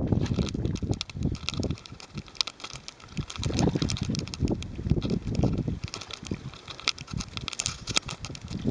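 Wind buffeting the microphone in gusts, over a carp splashing in shallow water as it is drawn to the shore. Quick, irregular clicks run throughout.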